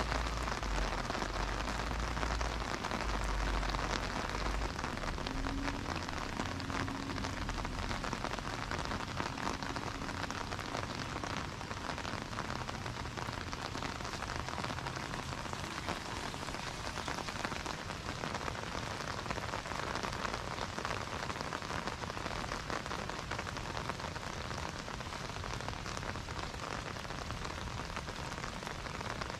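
Steady rain falling: a dense, even patter of drops on wet surfaces. A low rumble sits under it for the first few seconds.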